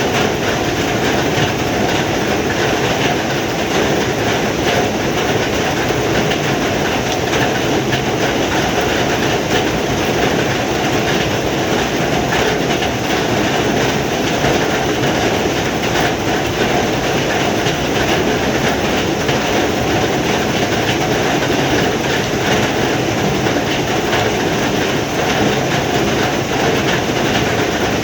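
Heavy rain falling steadily: a loud, even hiss that does not let up.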